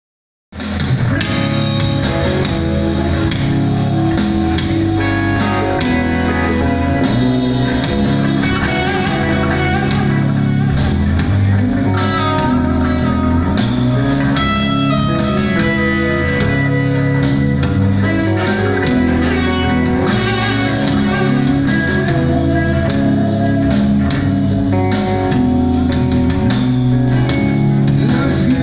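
Live rock band playing: distorted electric guitars, bass guitar and a drum kit, loud and even, starting abruptly about half a second in.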